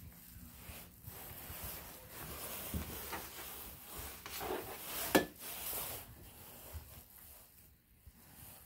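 Rubbing and handling noise from a phone being carried through a house, with soft knocks and one sharp click about five seconds in.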